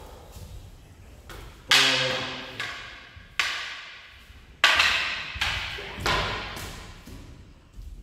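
Wooden practice swords (bokken) striking each other: about half a dozen sharp clacks at irregular intervals, the loudest near two and five seconds in, each dying away in the hall's echo.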